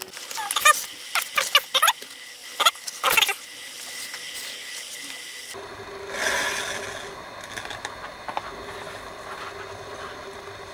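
Leather thonging squeaking and rubbing as it is pulled through the punched holes of a leather toggle, in several quick pulls over the first three seconds or so. Softer rustling of the leather being handled about six seconds in.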